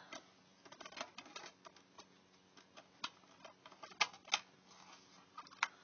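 Plastic DVD case being handled: scattered light clicks and rattles, with a few sharper clicks about four seconds in and again near the end.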